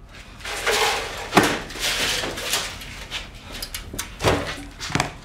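Rummaging: objects being shifted and clattered about, with several sharp knocks, the loudest about a second and a half in and two more near the end.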